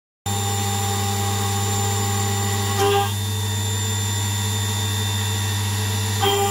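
CNC milling machine cutting a metal block with an end mill: a steady mechanical hum and whine that starts abruptly, briefly louder with a higher tone twice, about three seconds in and near the end.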